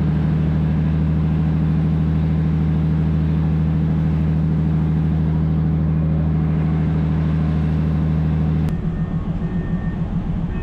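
Diesel engine of a slow-moving railcar train running steadily close by with a deep, even hum. About three-quarters of the way through, the sound drops a little and turns uneven.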